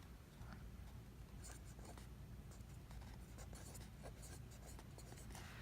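Faint scratching of a pen drawing on a surface, in short irregular strokes over a low steady hum.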